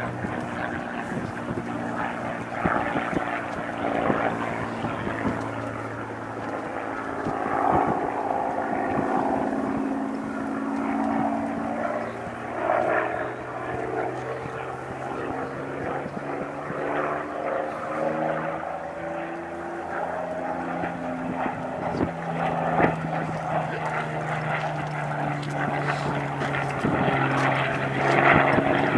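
Rolls-Royce V12 piston engine of a World War II fighter flying a display pass overhead. It runs steadily, its pitch slowly sliding up and down as the aircraft banks and moves, and it grows louder near the end as the aircraft comes closer.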